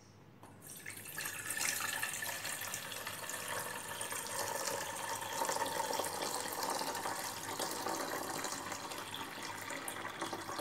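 Water poured in a steady stream from a measuring jug into an empty stainless-steel pot, splashing against the metal. The pour begins about half a second in.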